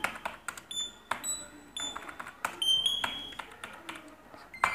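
Computer keyboard keys clicking irregularly as numbers are typed into a spreadsheet, with several short high-pitched beeps among the clicks.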